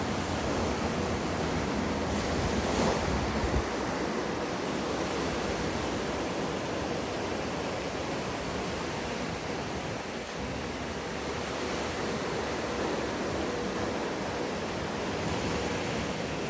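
Steady rush of breaking and churning water from a wave-pool wave, with a faint steady hum underneath.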